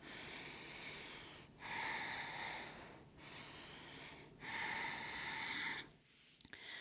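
A woman breathing slowly and audibly, close to the microphone: four long breath sounds, in and out in turn, each lasting over a second, while resting face down between yoga poses.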